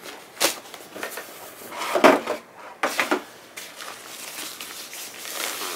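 Cardboard shipping box and a laptop's white protective wrapping sleeve being handled: a string of knocks, scrapes and rustles, loudest about two seconds in, then a longer stretch of rustling as the sleeve is slid off.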